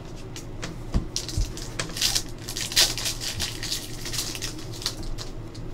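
Foil trading-card pack wrapper crinkling and tearing open in the hands, with cards shuffled and sliding against each other: a run of short, irregular crackles, busiest about two to three seconds in.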